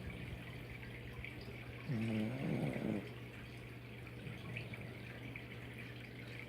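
Dog snoring in its sleep: one drawn-out, human-like snore about two seconds in, lasting about a second and dipping then rising in pitch, over a steady low hum.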